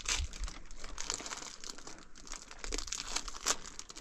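Plastic packet crinkling in quick, irregular crackles as it is handled.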